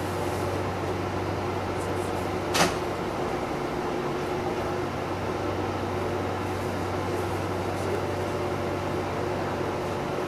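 Steady electric hum inside the cab of a Toei Arakawa Line tram as it moves slowly along the track, with one sharp click about two and a half seconds in.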